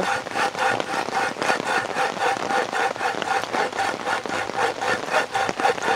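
Handsaw sawing through a forearm-thick piece of hard, wet, bark-seasoned firewood with a steady rhythm of back-and-forth strokes. The wood is so hard and wet that it is slow going.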